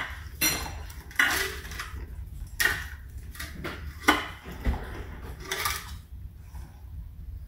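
Silicone spatula scraping and stirring thick banana bread batter against the sides of a ceramic mixing bowl, in irregular strokes about once a second that die down about six seconds in.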